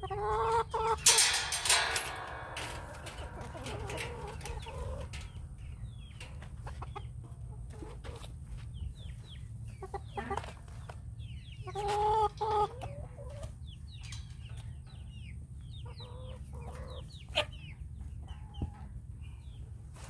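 Chickens clucking and calling in short bouts, the loudest a noisy burst about a second in, with a couple of sharp clicks near the end.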